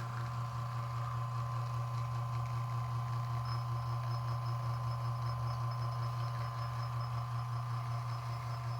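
Bezzera Mitica espresso machine's pump humming steadily while it pulls a shot, brewing at about 9.5 to 10 bar, a touch higher than the owner likes.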